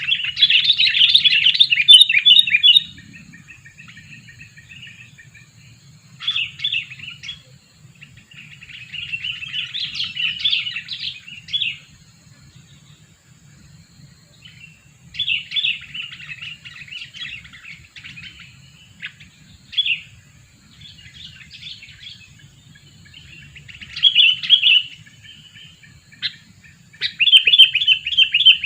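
Sooty-headed bulbul (kutilang) decoy bird calling in loud bursts of quick, chattering notes, about seven bursts with pauses of a few seconds between them: the calls used to lure wild bulbuls.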